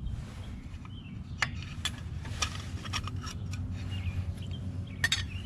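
A few light metallic clicks and clinks as the tin air cleaner housing and its metal base plate are handled and pulled off a small edger engine, over a low steady rumble.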